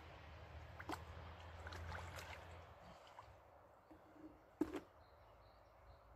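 Faint small splashes and handling noises as hands work in shallow water. One sharp knock about four and a half seconds in is the loudest sound.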